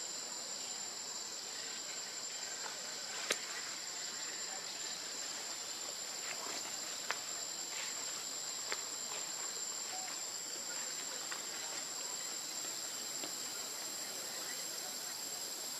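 Steady, high-pitched insect chorus droning without a break, with a few sharp clicks about three, seven and nine seconds in.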